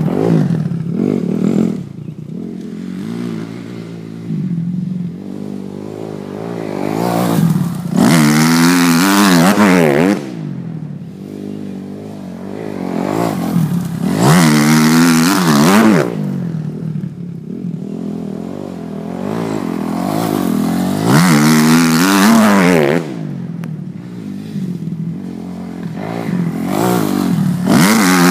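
2007 Kawasaki KX250F four-stroke single-cylinder dirt bike revving hard through the gears as it passes close by on a sand track, the engine note climbing and dropping with each shift. It comes past loudly about every six to seven seconds, fainter in between as it rides farther around the track.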